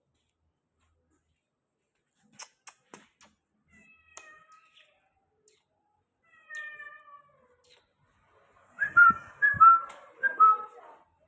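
White Persian kitten mewing: two soft, falling mews in the first half, then three loud, high mews in quick succession near the end. A few faint clicks about two and a half seconds in.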